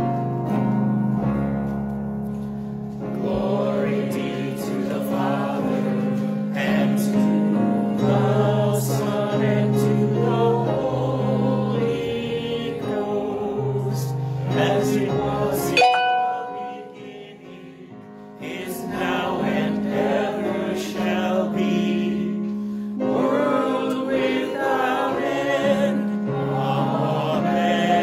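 Singing over a keyboard accompaniment, with steady bass notes held beneath a wavering voice line. There is a brief lull a little past halfway, then the music resumes.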